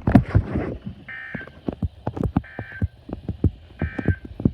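Three short buzzy bursts of Emergency Alert System data tones, about a second and a half apart: the end-of-message code that closes an EAS broadcast. A run of low thumps sounds under and between them.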